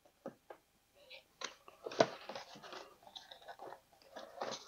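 Cardboard model-kit box being opened by hand: irregular scrapes, crinkles and light knocks of the card box and lid, the sharpest about two seconds in.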